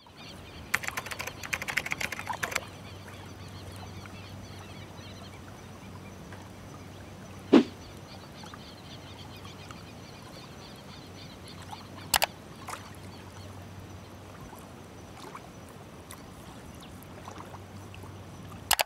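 Computer keyboard typing in a quick run of keystrokes for about two seconds near the start, then a few single sharp clicks spaced several seconds apart, over a steady low room hum.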